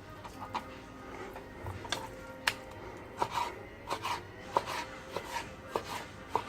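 Knife cutting fish fillet into pieces on a cutting board: irregular short knocks of the blade on the board, about one or two a second.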